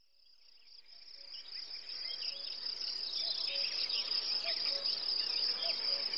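A steady high insect trill with scattered bird chirps, fading in gradually from silence.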